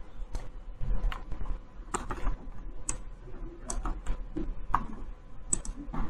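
Computer keyboard typing: scattered, irregular key taps, over a steady low hum.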